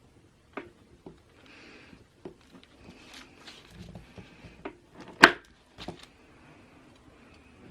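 Light household handling sounds: scattered small clicks and taps of objects being moved, with one sharper knock about five seconds in.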